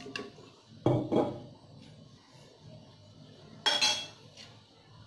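Metal ladle stirring pork pieces in a metal pot of water and knocking against the pot. There are two clinks about a second in and a sharper, ringing clink near the end.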